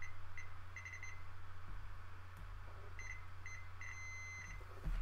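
Fluke digital multimeter's continuity beeper sounding in short, broken beeps as the probes touch the metal of a screwdriver, with a second run of beeps from about three seconds in that includes one longer beep. Each beep is the meter signalling a closed circuit through the metal when the probes make contact.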